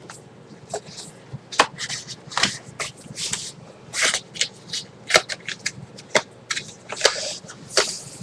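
Paper sheets being slid back into a paper envelope: an irregular string of short rustles and swishes.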